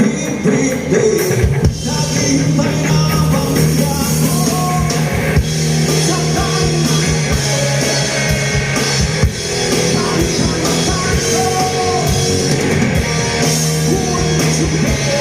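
Live rock band playing: drum kit, electric guitar and bass, with a low bass note held under regular drum strokes.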